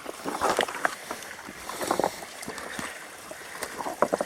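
Creek water running over rocks, with irregular scuffs and knocks scattered through it.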